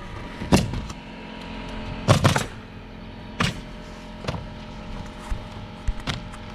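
Pneumatic roofing nailer firing nails into asphalt shingles: about six sharp shots at irregular intervals, including a quick pair about two seconds in, over a low steady hum.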